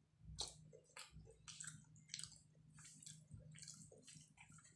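Faint wet chewing and lip smacks of a person eating curry and rice by hand, in irregular smacks about twice a second. Near the end, fingers squish through rice and curry gravy on the plate.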